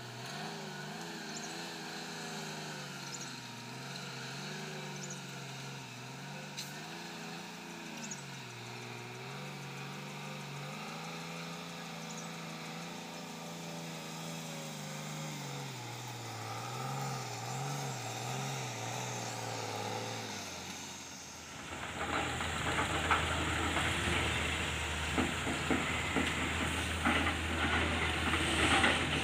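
Heavy diesel engine running with its revs rising and falling over and over as it works. About two-thirds of the way through it gives way to a louder, rough clattering and rattling with a steady low hum beneath.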